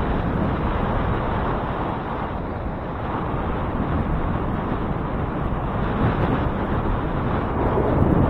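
Wind rushing over the microphone of a moving bicycle, with a low road and traffic rumble underneath that swells briefly near the end.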